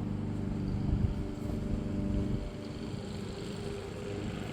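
A motor running steadily in the background, a low hum whose pitch lines shift about two and a half seconds in, with a brief knock about a second in.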